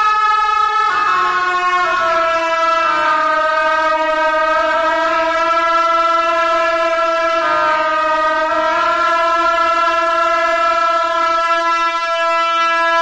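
A Tibetan gyaling, the double-reed ritual horn, playing long, steady held notes, the pitch stepping down twice in the first two seconds and breaking briefly about halfway through.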